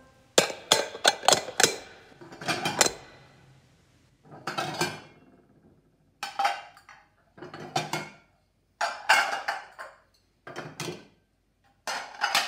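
Clattering and clinking of hard objects: about eight short bursts of sharp knocks with a little ringing, separated by quiet gaps, the loudest in the first two seconds.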